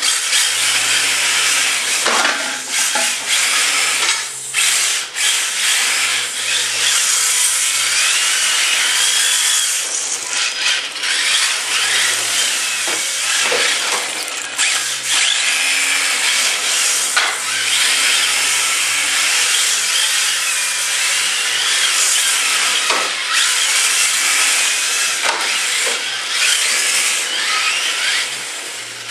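Two Tamiya TT-01E radio-controlled drift cars, each with a 20-turn brushed electric motor, whining and rising and falling in pitch with the throttle, over a hiss of tyres sliding on the floor. A few sharp knocks are scattered through.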